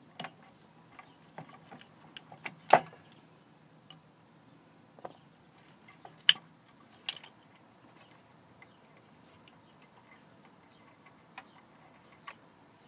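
Scattered clicks and light knocks of wires and insulated spade connectors being handled on a stair lift's sealed battery pack, with a few sharper clicks, the loudest about three seconds and six seconds in.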